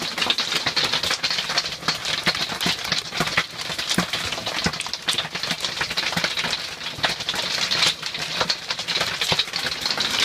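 Hail pelting an RV's aluminum roof, heard from inside the RV: a dense, continuous rattle of sharp, irregular impacts.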